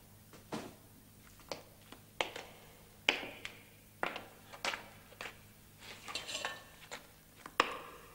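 Scattered knocks and metal clinks, a sharp one every half second to a second, the loudest about 3 s in and near the end: boots on a stone floor and a metal ornament being handled. A faint steady hum lies under them.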